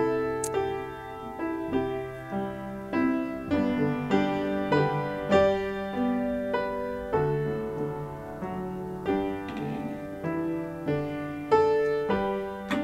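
Grand piano playing a slow offertory piece, single notes and chords struck about once or twice a second and left to ring and fade.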